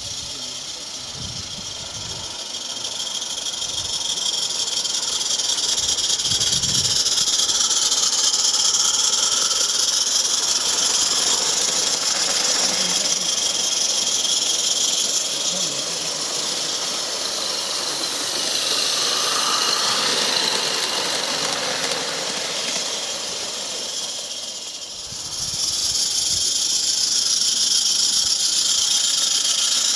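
Small live-steam garden-railway locomotive hissing steam as it runs along the track. The hiss swells a few seconds in, dips briefly near the end, then comes back.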